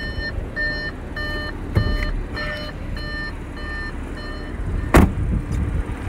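Car warning chime repeating about twice a second, a short chord of steady tones each time, going off while the driver's door stands open; it stops about four and a half seconds in. A dull thud comes near two seconds in, and a loud sharp knock about five seconds in.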